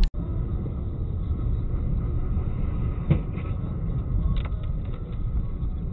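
Steady low rumble of a vehicle on the road, with a dull knock about three seconds in and a lighter click about a second later.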